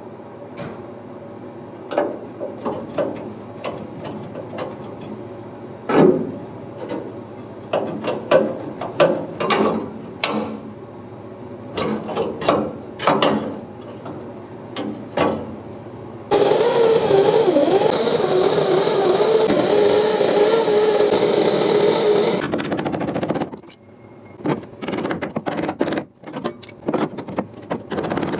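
Metal knocks and clanks, then a power tool cutting rusted car body sheet metal for about seven seconds, its pitch wavering under load before it cuts off sharply, followed by more knocks.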